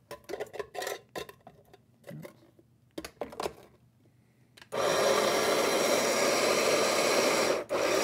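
Cuisinart CBM-18 conical burr grinder grinding coffee beans at its finest setting: a loud, steady grinding whir that starts a little past halfway and runs for about three seconds, with a brief break near the end. Before it come light clicks and knocks of the plastic grounds bin being seated and the button being pressed.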